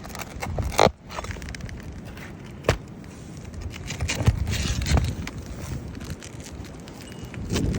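Roof shingles being pried loose, their seal strips breaking with scattered sharp cracks and scrapes over a low rumble of wind.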